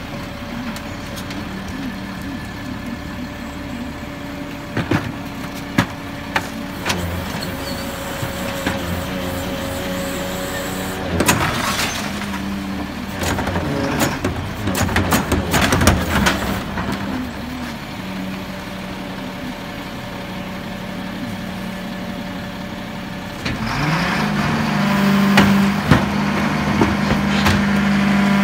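Freightliner Labrie split-body garbage truck with its diesel engine idling. A run of clanks and knocks from the hopper comes about halfway through. Near the end the engine speeds up and holds a higher, louder steady pitch, as it does when the truck powers its packer hydraulics.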